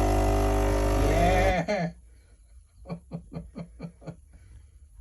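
Philips automatic coffee machine's pump running with a steady, loud buzz, cutting off suddenly about a second and a half in. A short run of quick laughter follows.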